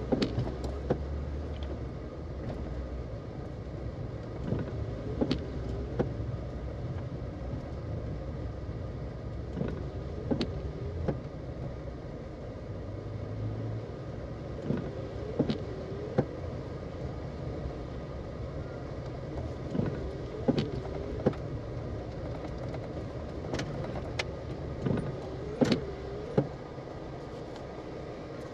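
Car driving, with a steady low road and engine rumble. Sharp knocks come in pairs every few seconds, with occasional single clicks.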